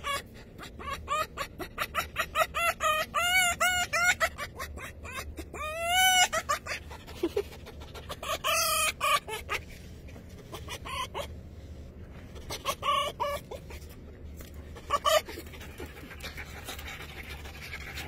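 Red fox making a rapid clucking chatter of short pitched calls while it is petted. A quick run of calls over the first few seconds gives way to a few shorter bunches with some higher squeaky notes, and the calls die away in the last few seconds.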